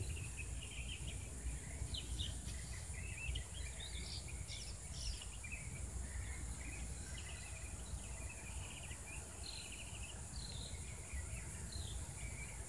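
Outdoor daytime ambience: a steady high insect drone, with many short bird chirps and twitters scattered through, over a low rumble.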